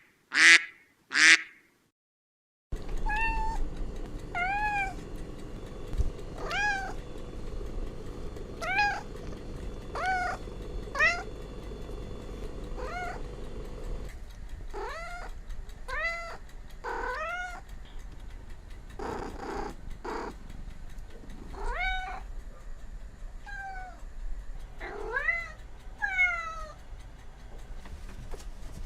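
A few short duck quacks right at the start. After a brief gap, a cat meows over and over, some fifteen calls each rising and falling in pitch.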